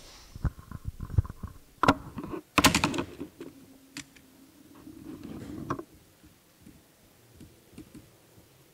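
Laptop keyboard keys tapped in a scattered run, with a few louder knocks about two to three seconds in; the clicking dies away near the end.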